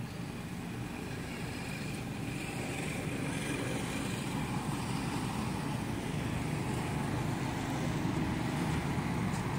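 Steady low outdoor rumble and hiss, growing gradually louder, with no distinct sound events standing out.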